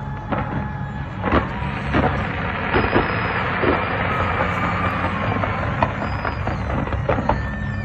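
Fireworks going off: scattered bangs and crackles of varying strength over a steady low rumble, with a thin tone that falls slowly through the middle.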